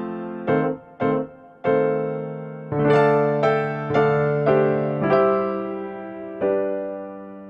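Background piano music: notes and chords struck one after another and left to fade, the last chord held and fading slowly near the end.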